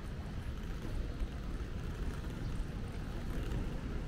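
Steady city street ambience with traffic rumbling past.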